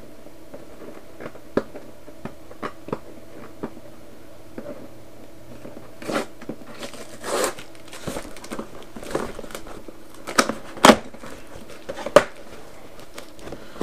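A large cardboard monitor box being handled and opened: scattered scrapes, rustles and tearing of cardboard and tape, with a few sharp snaps, the loudest in the last few seconds. A faint steady hum runs underneath.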